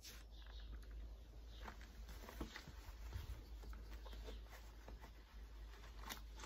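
Faint scattered clicks and small handling noises from a packed briar tobacco pipe being held up and then clenched in the mouth, over a steady low rumble.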